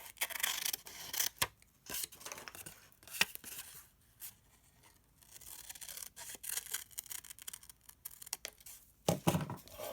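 Scissors cutting through a sheet of paper in short, irregular snips, with paper handling between cuts and a brief pause about four seconds in.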